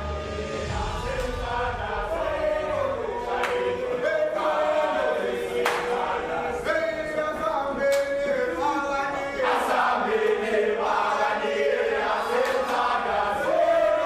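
A football team's players singing a chant-song together in unison, a large group of men's voices. A few sharp claps cut through the singing.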